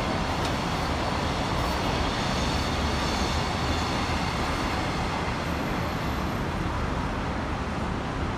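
Container freight train rolling past on an elevated line as its last wagons go by, blending into steady city traffic noise.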